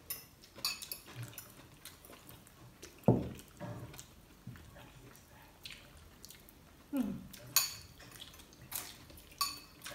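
A metal fork clinking and scraping against a glass bowl in scattered light clicks, with wet eating sounds in between and two short low mouth noises, about three and seven seconds in.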